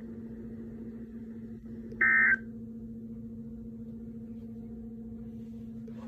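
RadioShack NOAA weather radio giving a steady low hum from its speaker. About two seconds in comes a single short, loud burst of high data tones, the EAS end-of-message signal that closes the Required Weekly Test.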